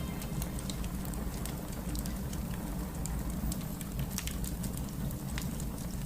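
Steady rain falling on a surface, with scattered sharp drop ticks over a low rumble.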